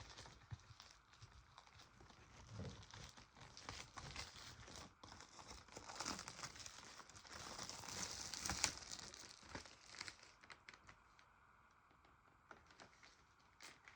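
Plastic shrink-wrap crinkling and tearing as it is peeled off a sealed VHS case, in irregular handling bursts that are busiest past the middle and then die down.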